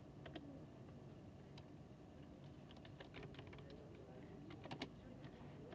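Faint computer keyboard typing: scattered soft key clicks in two clusters, about three seconds in and just before five seconds in, over the steady low hum of air conditioning.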